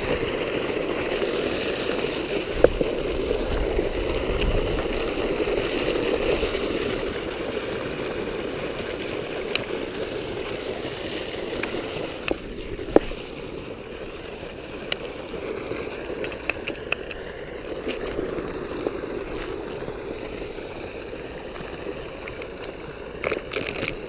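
Water gushing out of a pipe and splashing into the canal: a steady rushing splash that eases a little after about twelve seconds, with a few sharp clicks scattered through it.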